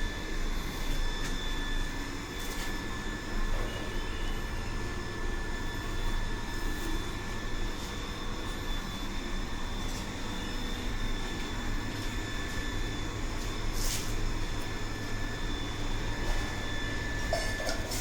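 Industrial sewing machine running steadily at speed: a continuous motor drone with a thin, steady high whine, without a break.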